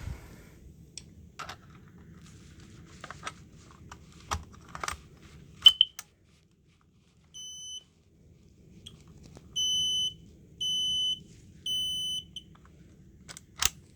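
Smoke alarm being tested: a few clicks and knocks as it is handled, one short loud chirp a little before halfway, then a single beep and a run of three evenly spaced high-pitched beeps, the alarm's three-beep pattern.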